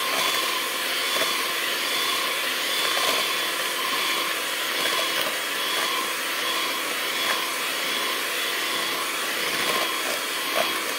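Electric hand mixer running steadily at speed, its beaters whisking eggs and sugar in a plastic bowl.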